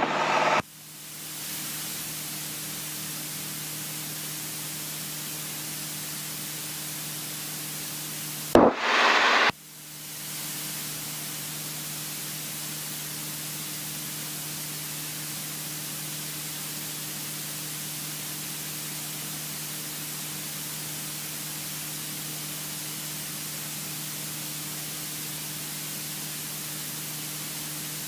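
Steady hiss of a light aircraft's cockpit intercom audio feed, with a low steady hum of the engine and propeller beneath it. About eight and a half seconds in, a loud burst of about a second breaks in, and then the hiss fades back up.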